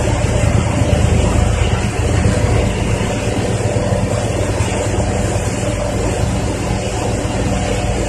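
Road roller's diesel engine running steadily as the machine drives away, the sound slowly fading.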